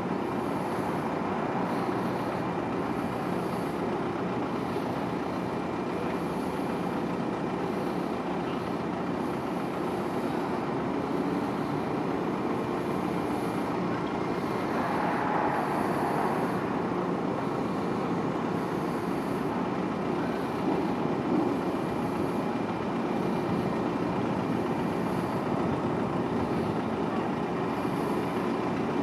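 Steady mechanical drone of a large RO-RO car carrier's engines and machinery as the ship gets under way, a noisy rumble with a faint steady hum in it, swelling briefly about halfway through.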